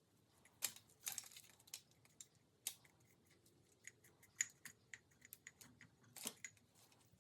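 Faint handling sounds from craft work: irregular small clicks and taps, with a short crinkly rustle about a second in.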